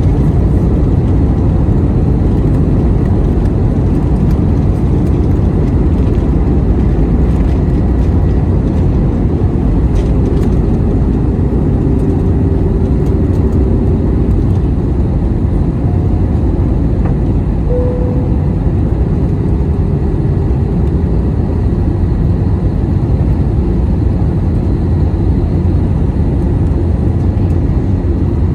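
Airbus A321 jet engines at takeoff thrust: a loud, steady, deep rumble that holds level throughout, with faint steady tones in the mid range.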